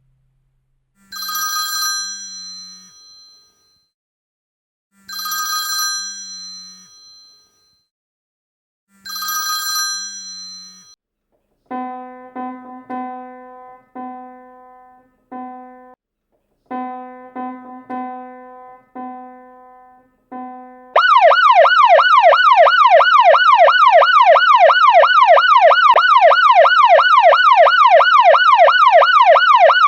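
A series of sound effects: three bell-like chimes about four seconds apart, then a repeated electronic ringing tone in short bursts, like a telephone ringing. About two-thirds of the way through, a loud, fast-warbling emergency siren starts, sweeping up and down about three times a second.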